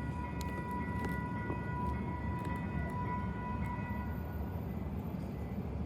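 Grade-crossing warning signal at an activated light rail crossing, sounding steady high tones that fade out about four seconds in, over the low rumble of street traffic.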